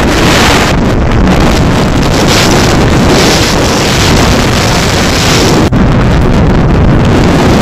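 Loud, steady wind rushing over the microphone of a camera carried on a hang glider in flight, with one very brief dropout about three quarters of the way through.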